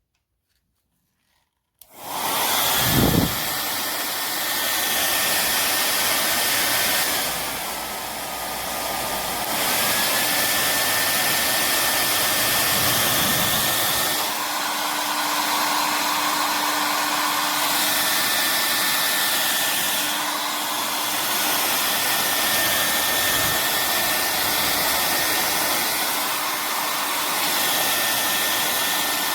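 Slopehill 1800W ionic hair dryer switching on about two seconds in and then running steadily, a loud rush of air with a thin high motor whine. The whine dips briefly and climbs back about a third of the way through, and the air noise shifts several times later on.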